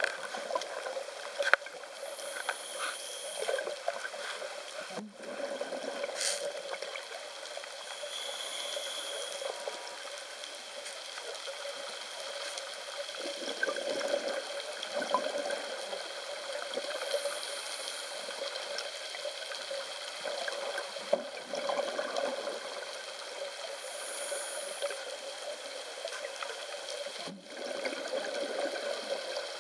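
Scuba diver breathing through a regulator, heard underwater: a short hiss on each inhalation every several seconds, then rough bubbling as the exhaled air escapes, over a steady muffled underwater wash.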